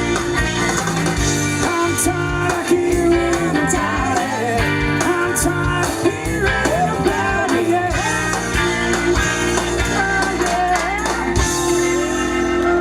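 Rock band playing, with a bending guitar line over bass and drums, then a held chord from about eleven seconds in as the song ends.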